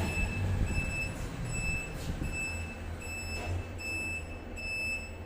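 Elevator beeper sounding a steady run of short, high-pitched beeps, about one and a half a second, over a low machine hum.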